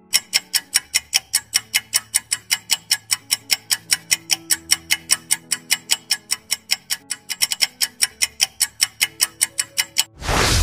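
Countdown timer's clock-ticking sound effect, about four sharp ticks a second, over soft background music. About ten seconds in the ticking stops and a loud swoosh-like burst of noise hits.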